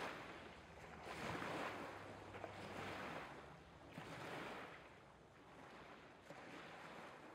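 Soft waves washing in gentle swells about every second and a half, fading away toward the end.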